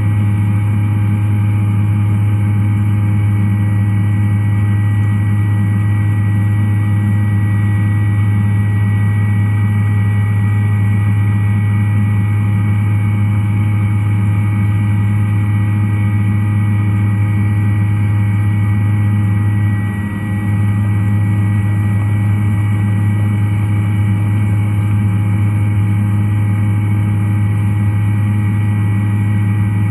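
Doosan DVF5000 five-axis mill cutting a titanium turbine blade under flood coolant: a steady machine hum with several fixed tones over a hiss of coolant spray, dipping briefly about twenty seconds in.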